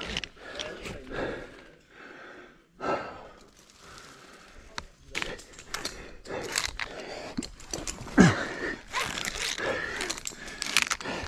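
A rope climber's hard breathing and grunts while ascending, mixed with irregular clicks, knocks and rubbing from the rope and climbing gear. The loudest sound is a short grunt about eight seconds in.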